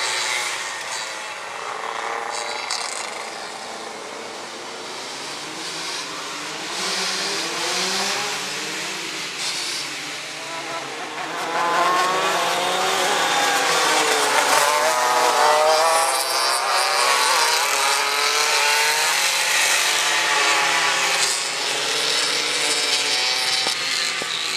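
Engines of several racing go-karts revving up and down as the pack laps the circuit, several pitches rising and falling over one another. The sound grows louder about halfway through, as the karts come close.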